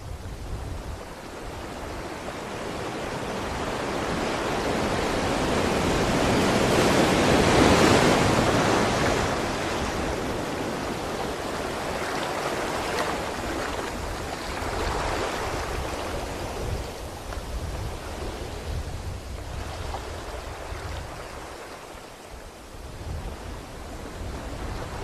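Ocean water sound: a rushing wash of sea water that swells slowly to a peak about eight seconds in and then ebbs into gentler surges, over a constant low rumble.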